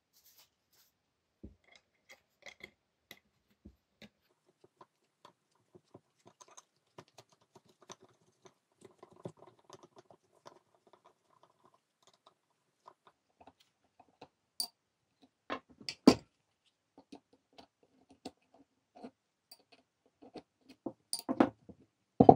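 Small metallic clicks and scrapes of an open-end wrench working the nuts on the rear housing of an old Dacia alternator. There are a few louder knocks, the loudest about 16 seconds in and near the end, as the alternator and tools are handled on the table.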